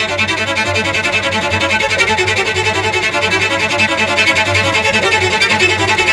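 Background music: a lively instrumental piece with a fast, even stream of quick notes over a steady low accompaniment.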